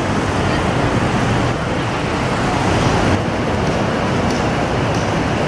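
Steady, dense noise of a busy city street with road traffic running.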